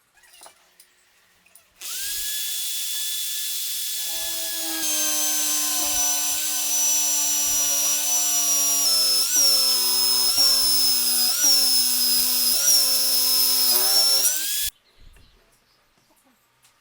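Electric drill motor spinning up and running steadily. Its pitch dips briefly several times as the bit bites into the work under load, then it stops abruptly.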